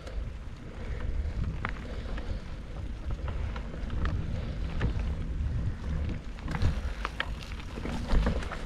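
Mountain bike riding a dirt singletrack: wind rushing over the microphone and a steady low rumble from the tyres on the trail, with scattered sharp clicks and rattles.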